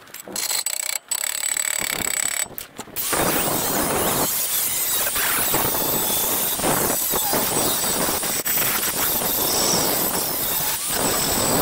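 Angle grinder grinding a welded metal part, the disc squealing against the metal. It starts and stops a few times in the first three seconds, then grinds steadily.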